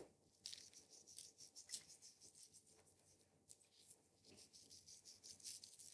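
Faint soft scratchy rustles and ticks of white sugar being pinched from a small glass bowl and sprinkled by hand onto pastry edges.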